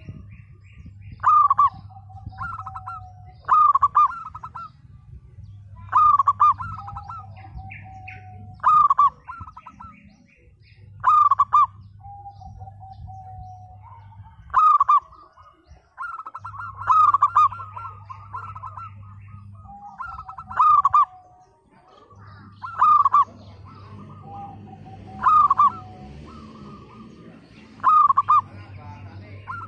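Zebra dove (perkutut) cooing: short bursts of quick ringing coo notes repeated about every two seconds. Some bursts end in a lower drawn-out note.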